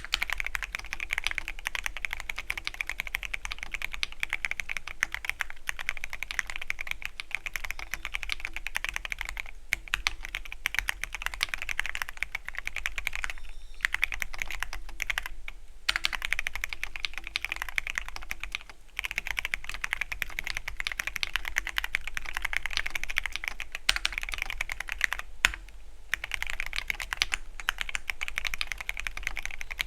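Fast continuous typing on a Keychron Q13 Pro Max mechanical keyboard with linear red switches, a dense run of key clicks broken by several brief pauses.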